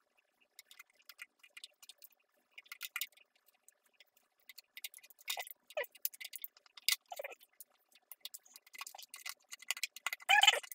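Hands working stickers onto a hard plastic RC car body shell: scattered light clicks, crinkles and rustles of the decal backing, with a few short squeaks of fingers rubbing the glossy shell, the loudest about a second before the end.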